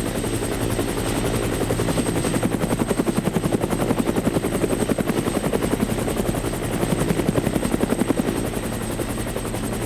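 Helicopter rotor chop: a fast, steady thudding beat that swells louder around the middle and again near the end.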